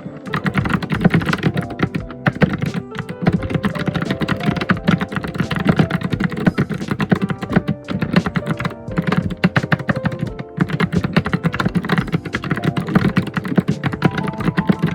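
Continuous fast typing on a computer keyboard, a dense run of key clicks and heavier thunks that starts right at the beginning, over background music with held notes.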